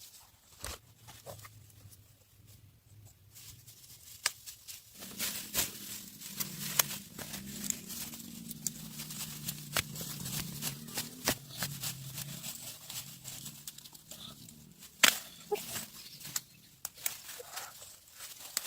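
Rustling, crackling and sharp snaps and tearing of corn plants being handled as ears are picked by hand, with one loud snap near the end. A low drone sits under it for several seconds in the middle.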